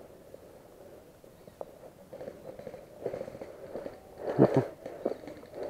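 Footsteps walking over the ground, irregular soft scuffs with a louder thud about four and a half seconds in.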